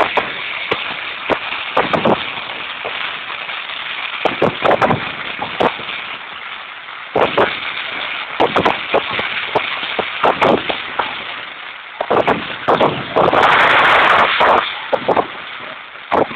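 Fireworks display: aerial shells bursting in an irregular string of sharp bangs and crackles over a steady rushing background, thickest in a dense stretch about thirteen to fifteen seconds in.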